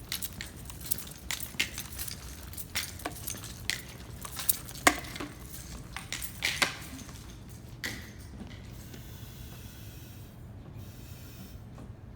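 Irregular sharp clicks and light knocks with faint clinks, several a second, dying away about eight seconds in and leaving a steady low hum.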